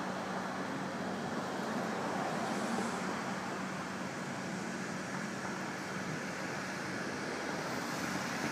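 Steady city street traffic noise, a continuous rush of passing vehicles, with a low engine hum through the first two-thirds.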